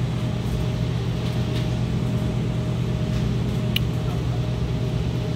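Steady low hum of running refrigeration machinery, with a faint steady whine above it and one small tick near the end.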